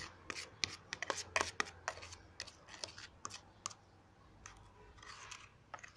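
Metal spoon stirring thick dish-soap and baking-soda slime in a plastic tub: an irregular run of sharp clicks and scrapes as the spoon knocks the container, thinning out after about three and a half seconds.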